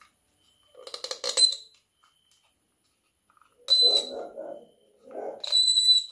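Clinks and knocks of hard parts being handled, in three short clusters with bright metallic ringing: about a second in, around four seconds in, and near the end.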